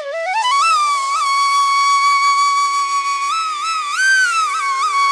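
Background music: a single high, flute-like melody that slides upward at the start, then holds one long note with a few quick ornaments, over a faint steady drone.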